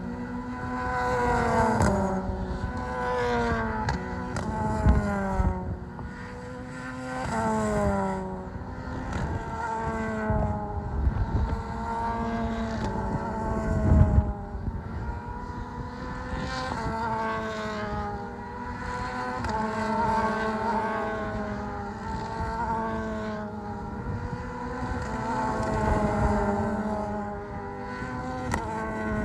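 Single-seater race car engines running at high revs on track, one car after another. The engine pitch repeatedly climbs and then falls, and the sound swells and fades as the cars go by.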